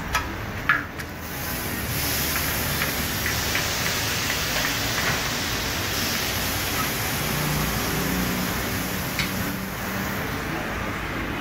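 Meat frying in fat in a large round taco griddle pan: a steady sizzling hiss that swells about a second and a half in and eases slightly near the end, with a few sharp utensil clicks near the start.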